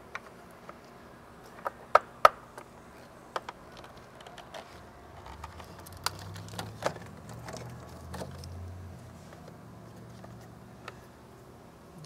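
Sharp clicks and knocks of bolts and hand tools being handled in an engine bay, the two loudest close together about two seconds in. A faint low hum comes in midway and fades out again.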